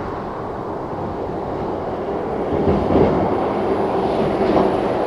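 Road traffic noise from a nearby highway, a steady low rumble that swells a little about halfway through as a heavy vehicle's engine hum comes up.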